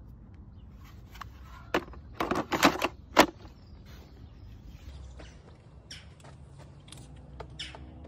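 Stihl AP 300 S battery pack being pushed into the slot of a Stihl KMA 135 R power unit: a knock, a short plastic scraping rattle, and then a sharp click about three seconds in as it latches.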